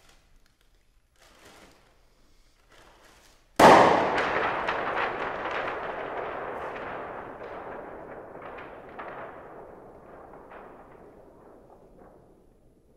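A brown paper bag, blown up by mouth, popped with a single sharp bang about three and a half seconds in. A crackling tail follows and fades away gradually over several seconds. Faint papery rustles come before the bang.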